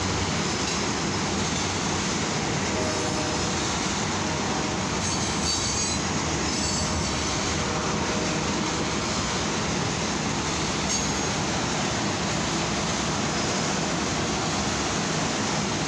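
Freight train of flatcars loaded with steel rail rolling past at about 29 mph: a steady noise of wheels running on the track. Brief faint wheel squeals come about three and six seconds in.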